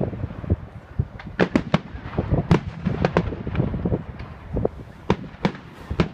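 Fireworks going off: many sharp bangs and cracks in quick, irregular succession.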